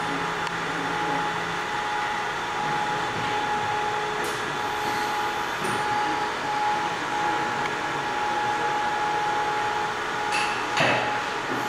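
Steady fan whir with a steady hum tone from a ZM-R720 BGA rework station's fans, with a few short clicks, one about four seconds in and a louder one near the end.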